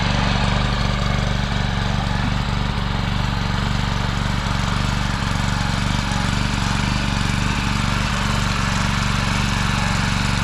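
Engine running steadily at a constant speed, with a fast, even beat.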